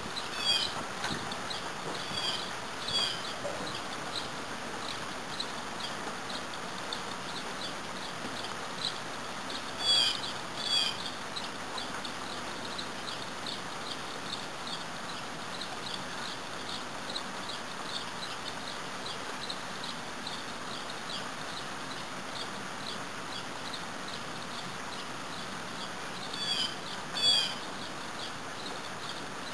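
Steady hiss of light rain, with a bird chirping over it in short repeated chirps. The chirps are loudest in pairs about ten seconds in and again near the end.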